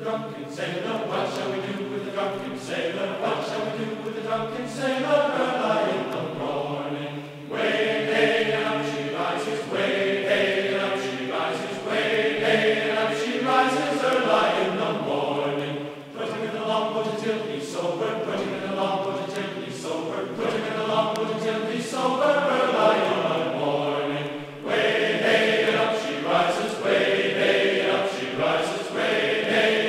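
Background music of choral, chant-like singing, with sustained voices in phrases that break and start again about every eight seconds.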